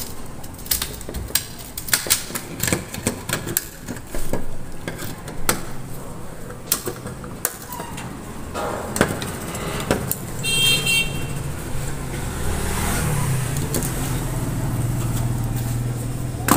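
Steel needle-nose pliers clicking and scraping against the metal terminal strips and diode clips of a rusted solar panel junction box, in a run of short sharp clicks, as burnt bypass diodes are worked loose. In the last third a low steady drone builds underneath.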